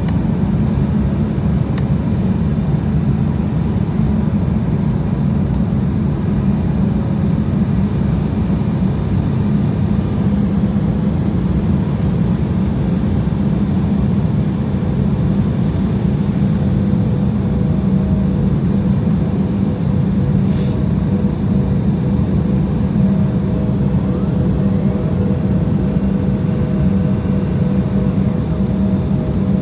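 Steady low roar of a jet airliner's engines and airflow heard inside the cabin in flight, with a faint steady hum joining after the middle.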